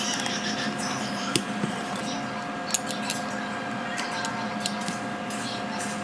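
Scattered light ticks and clinks of small metal repair tools, about one a second, over a steady electrical hum.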